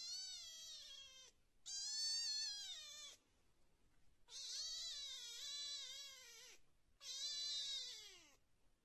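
A kitten meowing: four long meows in a row, each a second or two long and falling in pitch at its end, with short pauses between. The first is already under way as the sound begins.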